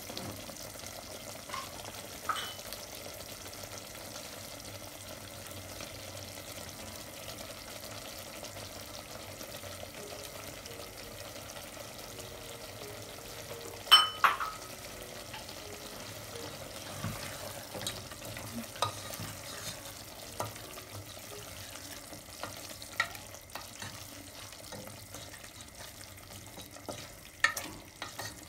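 Chicken curry sizzling and bubbling in a pot, a steady hiss, with a few sharp knocks of a spatula against the pot; the loudest knocks come about halfway through.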